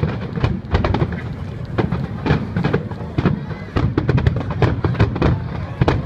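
Aerial fireworks shells bursting, a rapid, irregular run of sharp bangs over a continuous low rumble.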